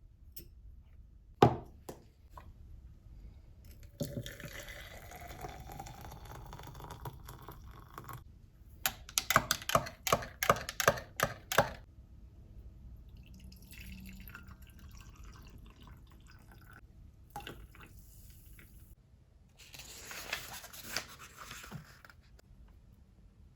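Liquid being poured into a container, its tone rising as it fills, with a sharp click before it and a quick run of clicks and clinks after it.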